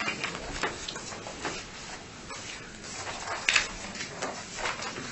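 Papers being handled and leafed through on meeting-room tables: scattered short rustles and light knocks, the loudest about three and a half seconds in.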